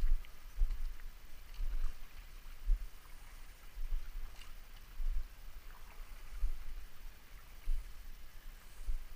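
River water lapping and knocking, with irregular low thumps about once a second and faint small splashes and ticks between them.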